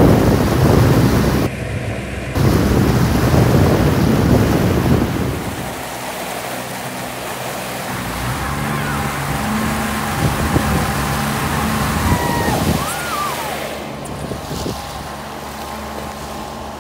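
Wind buffeting the microphone over rushing, splashing water, loudest for the first five seconds, then easing to a quieter rush with a faint steady low hum underneath.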